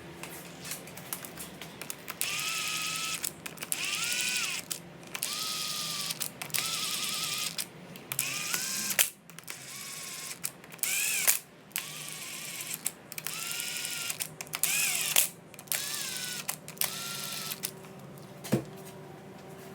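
A small cordless power tool, such as a driver or electric ratchet, runs in about ten short bursts of roughly a second each. Its motor pitch rises and then falls in each burst.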